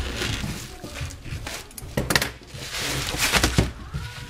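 Scissors cutting through a plastic vacuum-sealer bag, then the plastic bag crinkling and rustling as it is handled, with a few sharp knocks and clicks.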